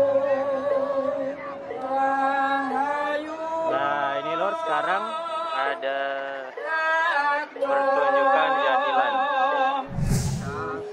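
Singing with long, wavering, ornamented notes, the music of a jathilan horse-trance dance. About ten seconds in, a short rumbling burst cuts across it.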